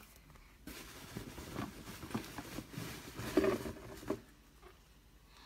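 Soft rustling with light clicks and taps from small plastic toy figures being handled. It starts about a second in and stops about four seconds in.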